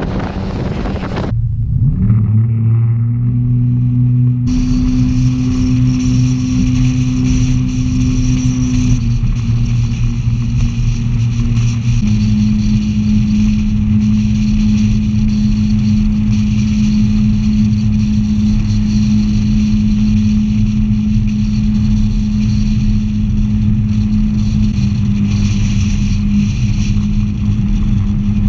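Yamaha SX190 jet boat's engine and water jet running at a steady cruising pace, with wind and water rushing past. A brief hiss at the start cuts off. About two seconds in, the engine note rises and then holds steady, shifting pitch slightly a couple of times.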